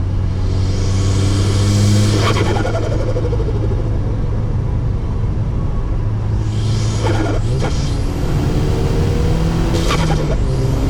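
Audi S3 8P's turbocharged 2.0 TFSI four-cylinder with an open intake pulling hard under boost, the turbo hissing as it spools. The throttle is lifted about two, seven and ten seconds in, each time with a short burst of turbo flutter as the engine note falls away.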